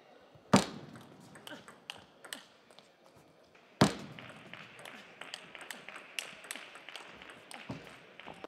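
Table tennis ball clicking off bats and table during rallies, with two loud sharp knocks about half a second and about four seconds in.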